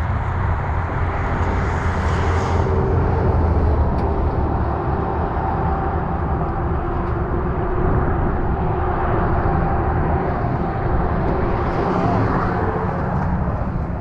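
Steady vehicle noise: a low rumble with road hiss, holding level throughout.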